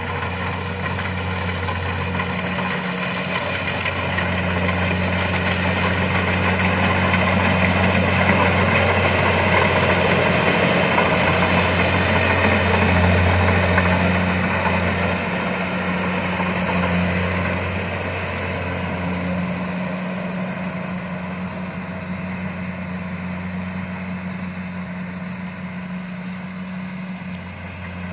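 Kubota DC-70 rice combine harvester running as it cuts and threshes rice: a steady diesel drone with a low hum and machinery noise over it. It grows louder as the machine comes close, peaking about halfway through, then fades as it moves away.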